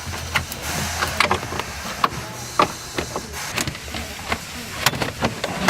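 Irregular clicks and light metallic clanks of hand tools and car parts being handled during strut removal, over a low steady hum.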